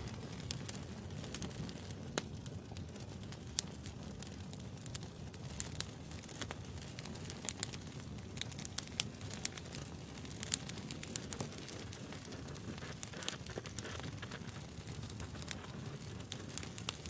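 Wood fire burning with a steady low rumble and irregular sharp crackles and pops of burning wood scattered throughout.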